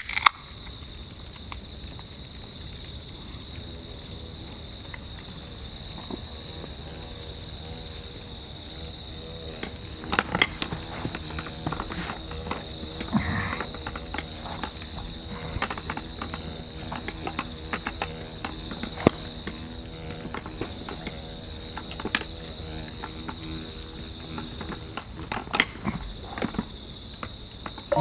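Night insects trilling steadily with an even, slow pulse, over scattered sharp clicks and pops from the campfire.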